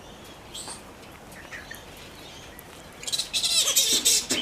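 Flying-foxes squabbling over food: faint chirps, then about three seconds in a loud burst of rapid, high-pitched chattering squeals.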